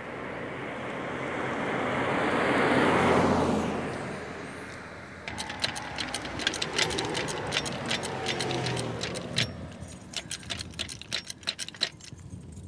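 A car drives past, rising to a peak about three seconds in and fading away. Then comes a long run of quick, sharp metallic clicks and clinks.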